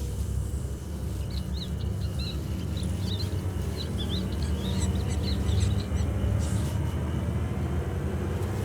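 Many short, quick, high-pitched animal chirps over a steady low rumble, the chirps dying away about two-thirds of the way through.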